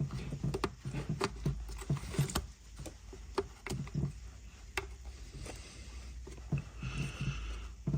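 Irregular small clicks, taps and knocks of hands and tools handling engine parts and connectors, some with a dull low thud.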